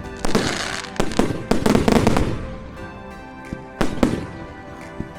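Fireworks going off in a run of sharp bangs, several in the first two seconds and two more about four seconds in, with music playing underneath.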